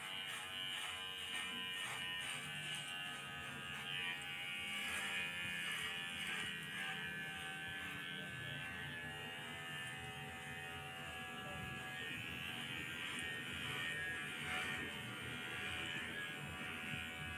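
Electric hair clipper buzzing steadily as it cuts hair down to the skin in a zero cut.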